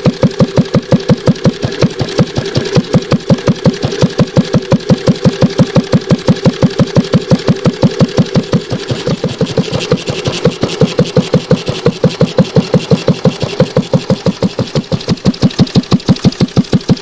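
Home-built single-cylinder overhead-valve flywheel engine running, with a steady, even exhaust beat of about five firings a second.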